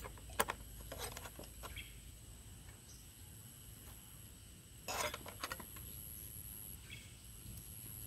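Faint metallic clicks and taps of steel wire and pliers being handled: a few near the start and a cluster about five seconds in. Behind them runs a steady high-pitched insect drone.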